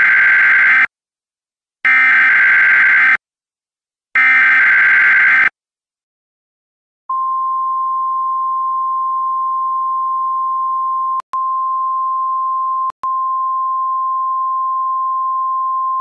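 Emergency Alert System tones: the last two of three short buzzy bursts of SAME header data that open the alert, each a bit over a second long, then about seven seconds in the steady single-pitched National Weather Service attention tone, broken twice by brief dropouts. The data bursts encode the warning, and the attention tone announces the spoken message to come.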